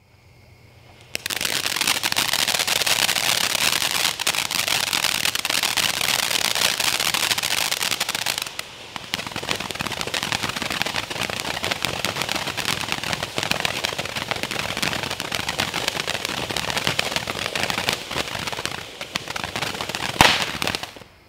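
Strobing Fountain ground fountain firework burning: a faint hiss, then about a second in a loud steady spray of hissing sparks packed with rapid crackles. It dips briefly near the middle, gives one sharp louder pop near the end, then burns out.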